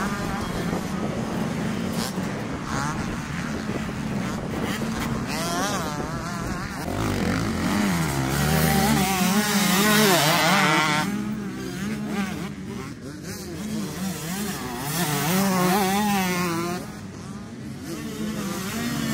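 Several motocross bikes passing close one after another through a corner, their engines revving up and dropping back as the riders brake and accelerate. The loudest pass comes about ten seconds in, with another near the end.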